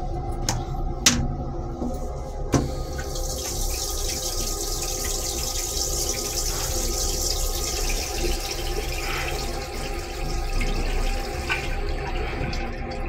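Train toilet flushing: a few sharp clicks, then blue flush fluid rushing into the stainless-steel bowl for about nine seconds before easing off, over a steady background hum.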